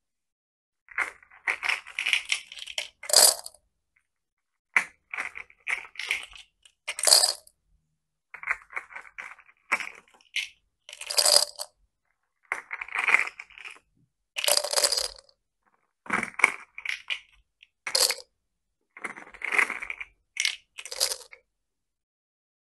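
Small plastic beads scooped and tipped into a glass jar, clattering and clinking against the glass and the other beads in short bursts every second or two.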